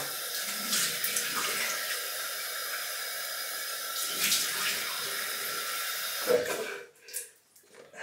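Tap water running into a bathroom sink and splashing as alum residue is rinsed off a freshly shaved head. The tap is turned off near the end, and the running water stops suddenly.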